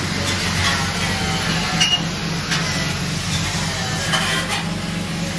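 Lexus IS200's straight-six engine idling with a steady low hum, with a few light metallic clinks about two seconds in and again near the end.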